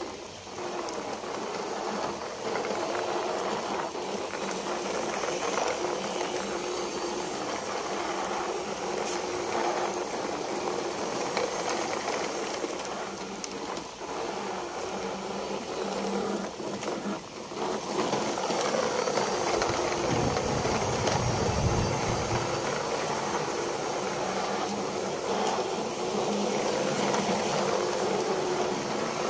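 Plastic toy trucks rolling in a line over wet concrete: a steady rattle and hiss of small plastic wheels on the rough, wet ground.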